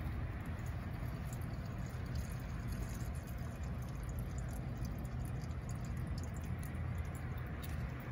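Gasoline being poured into a small engine's fuel tank, a steady trickle of liquid.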